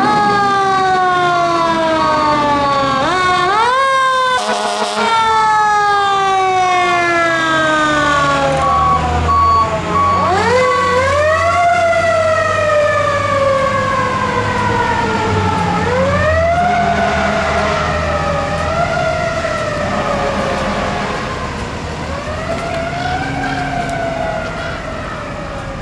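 Electronic sirens of a fire engine and a rescue squad wailing, each wail rising quickly and falling slowly, two of them overlapping near the start. The sirens fade toward the end as the vehicles drive away. A steady reversing beeper sounds until about halfway.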